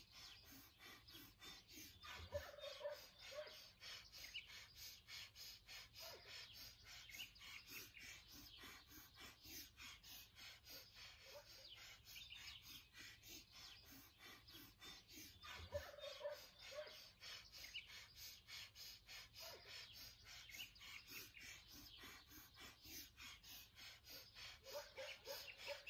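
Breath of fire: fast, even, forceful nasal breaths, about two to three a second, kept up without a break, with birds chirping in the background.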